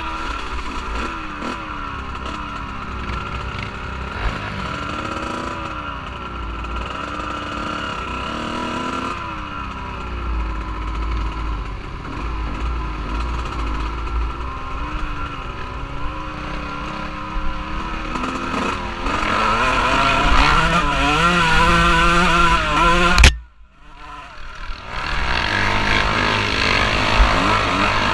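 Off-road vehicle engine revving up and down as it is ridden, with wind rumbling on the microphone. The sound drops out for about a second near the end, then the engine is heard again.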